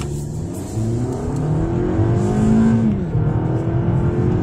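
The 2021 Lexus ES250 AWD's 2.5-litre four-cylinder engine, heard from inside the cabin, revving up as the car accelerates. It rises in pitch, drops once near the middle as the automatic shifts up, then climbs again, growing louder throughout. The car gains speed sluggishly: it can't get out of its own way.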